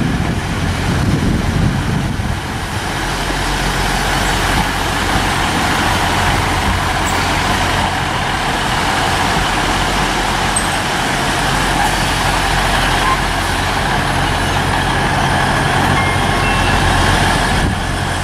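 Northern Class 150 Sprinter diesel multiple unit drawing slowly into the station: a steady low diesel engine hum under a rumble of wheels on rail that builds as it nears, with a brief high squeal near the end.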